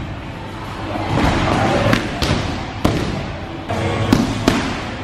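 Punches landing on Muay Thai pads: several sharp slaps at uneven intervals, over background music.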